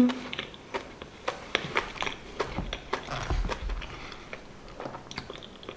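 Close-up chewing of a sugared, rolled pancake eaten by hand: a run of small wet mouth clicks and smacks, with a brief low rumble about three seconds in.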